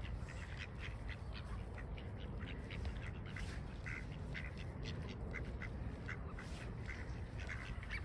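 A group of ducks quacking and chattering, many short calls following one another.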